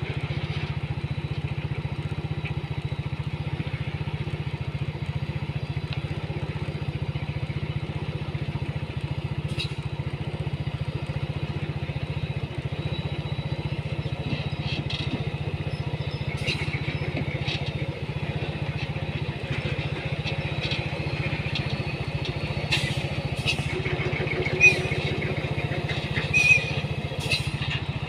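A motor engine running steadily with a low, even rumble, with scattered light clicks and ticks over it and a couple of short, sharper knocks near the end.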